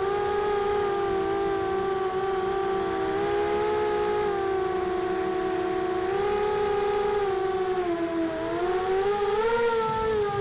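FPV quadcopter's electric motors and propellers whining, heard close from the onboard camera: a steady hum of several near-matching tones whose pitch shifts with throttle, dipping about eight seconds in and rising again near the end.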